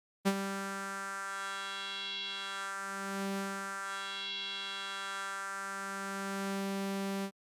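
A single held note on the Spectra synthesizer whose timbre morphs back and forth through spectral sequence 1 under mod-wheel control. The bright upper harmonics swell and fade twice, alternating with swells of the low fundamental, before the note cuts off suddenly.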